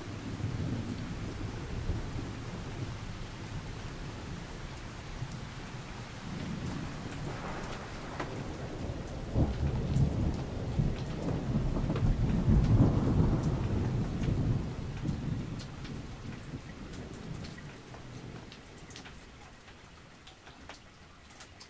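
Rain falling with rolling thunder; the rumble swells to a long peak about halfway through and then slowly dies away.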